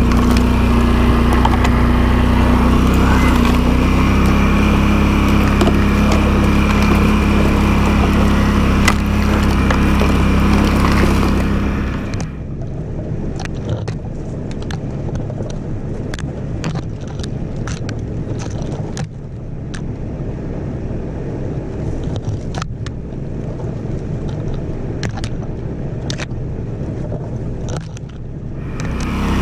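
ATV engine running steadily under load as the quad pushes along an overgrown trail. About twelve seconds in the sound turns abruptly quieter and duller. From there on, frequent sharp snaps and scrapes of brush and branches against the machine sound over the engine's low rumble.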